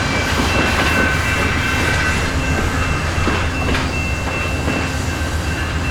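A train rolling past at close range: a steady low rumble with occasional wheel clicks over rail joints and a thin, high-pitched wheel squeal.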